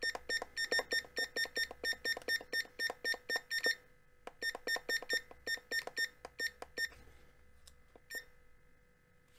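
Digital LED desk clock giving rapid short beeps as its setting button is held and the minutes step quickly forward, several beeps a second. After about four seconds the beeps thin out to separate ones, with a last single beep near the end.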